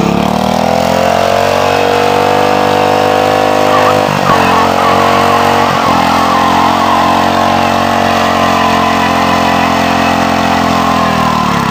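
Dynamark lawn tractor's engine revved up to high speed and held there, dipping briefly twice around the middle, then dropping back near the end.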